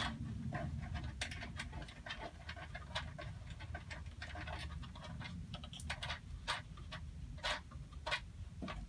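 Scattered small clicks and scrapes of hands working the fasteners of a plastic panel to swing it open, over a quiet low hum.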